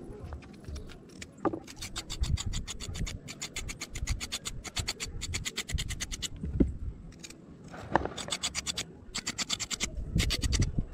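Kitchen knife blade scraping the skin off a raw carrot in quick repeated strokes, about six a second, with a couple of short pauses.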